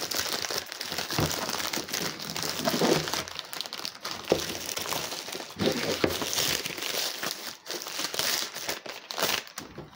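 Grey plastic courier mailer bag crinkling and crackling continuously, with many sharp crackles, as it is opened by hand and the plastic-wrapped box is pulled out.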